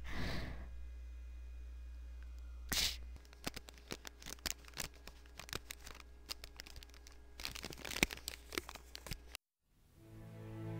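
Irregular crackling and crunching noises, several short ones a second, that stop abruptly; soft music comes in just before the end.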